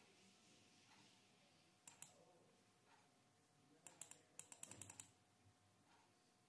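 Computer mouse clicks: a pair of clicks about two seconds in, then a quick run of about ten clicks a second later, over faint room tone.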